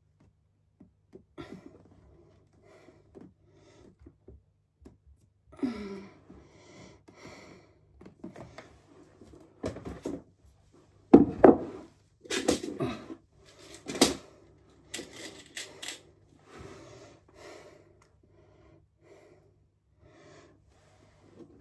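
Picture frames and tools being handled against a wall: irregular clicks, taps and clatters of hard objects, with a burst of louder knocks and rattles about halfway through.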